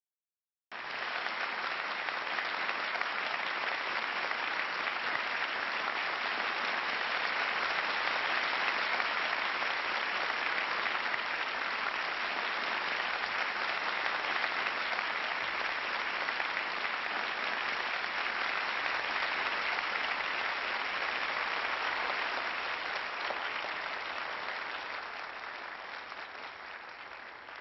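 A large audience applauding steadily, a dense crowd of clapping hands. It starts abruptly about a second in and fades away over the last five seconds.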